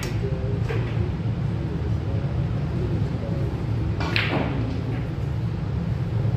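A sharp clack of pool balls about four seconds in, ringing off briefly, with a few fainter clicks near the start, over a steady low hum of the hall.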